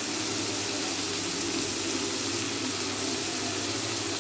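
Onions, tomatoes and bitter gourd peels frying in oil in a kadhai: a steady sizzle, with a low hum underneath.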